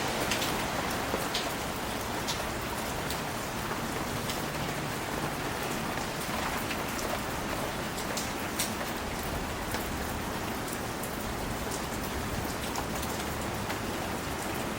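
Steady rain falling, an even hiss with scattered sharp ticks of single drops hitting surfaces.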